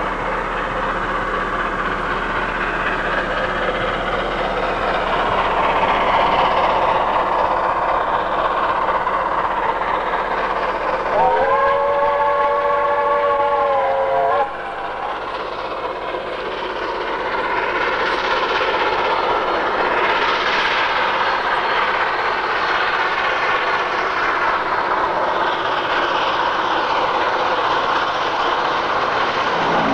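Steam locomotive J1211 running past with its train: steady exhaust and running noise that grows louder as it nears. About eleven seconds in, its whistle sounds a chord of several tones for about three seconds, then cuts off abruptly.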